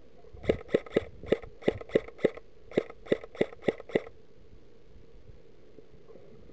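Airsoft gun firing a quick string of about a dozen single shots, roughly three or four a second, each a short sharp pop.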